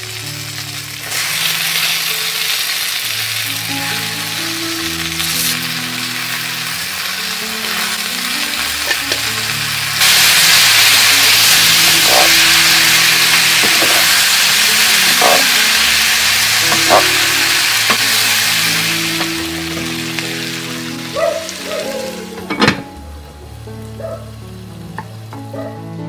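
Friggitelli peppers sizzling in oil in a frying pan. About ten seconds in the sizzle jumps louder as chopped tomatoes and garlic join them and are stirred with a wooden spoon. Near the end the sizzle eases off and there are a few sharp knocks.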